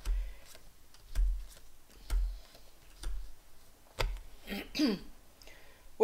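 Cards being laid down one at a time on a tabletop: soft taps about once a second, five in all. A brief murmured voice near the end.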